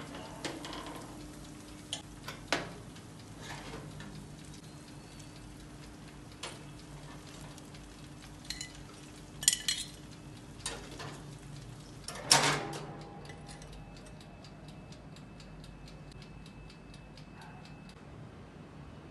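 Metal tongs and a baking tray clinking and clattering against the wire rack of a countertop electric oven, over the oven's steady low hum; the loudest clank comes about twelve seconds in. After that the hum stops and a fast, faint, even ticking takes over.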